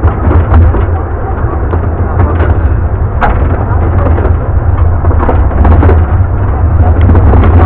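Wind buffeting the microphone in a loud, steady low rumble from a moving miniature railway carriage, with the clatter and scattered clicks of the carriage running along the track.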